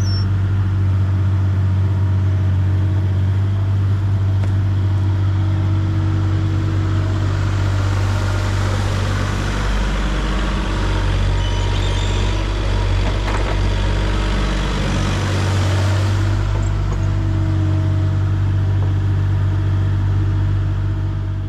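A large vehicle engine running steadily at an even speed, with a rise of hissing noise in the middle stretch. It cuts off abruptly at the end.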